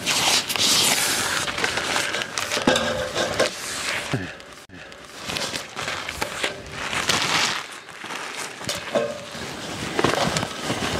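Gusty wind buffeting the microphone in swells that rise and fall every second or two, with a thin sheet crinkling as it is handled.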